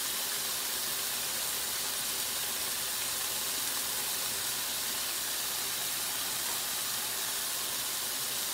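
Steady sizzling hiss from an electric grill cooking food, unchanging throughout.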